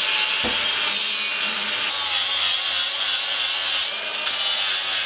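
Flap disc spun by a cordless drill, grinding rust off the end of steel rectangular tubing down to bare metal. It is a steady, loud abrasive grinding that holds without a break.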